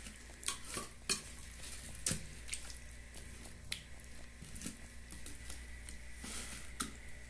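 Scattered light clinks and knocks of bowls handled in a stainless-steel kitchen sink. Near the end a hand mixes raw chicken pieces into their seasoning in an aluminium bowl.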